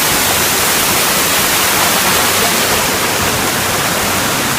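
Waterfall crashing into the river pool: a loud, steady, even rush of falling water.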